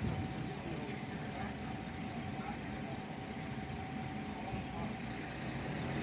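A vehicle engine idling steadily, a low even hum with a faint thin steady tone above it, and faint indistinct voices in the background.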